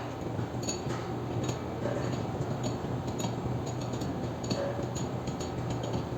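Scattered light metallic ticks and clinks, several a second apart, over a steady low hum: small metal parts and tools being handled during roller coaster wheel assembly work.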